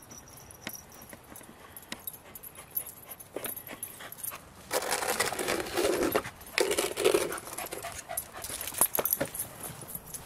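Dog panting hard after a frisbee chase, in quick irregular breaths that grow loud from about five seconds in to about eight seconds in.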